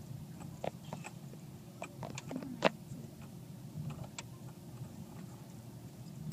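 In-cabin sound of a 4x4 driving slowly on a rough gravel track: a steady low engine and road hum with scattered clicks and knocks from stones and the bodywork. The sharpest knock comes about two and a half seconds in.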